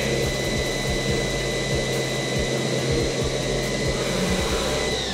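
CNC lathe spindle running with a steady high whine while drilling stainless steel bar stock, with coolant spraying over the work. At the very end the whine starts to fall in pitch as the spindle winds down.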